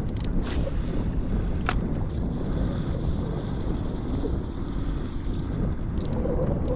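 Steady wind rumble on the microphone, with a single sharp click a little under two seconds in.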